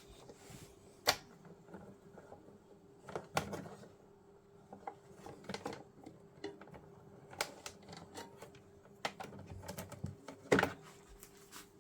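Scattered sharp clicks and knocks of hard objects being handled, irregular and a few seconds apart, with the loudest about a second in and near the end.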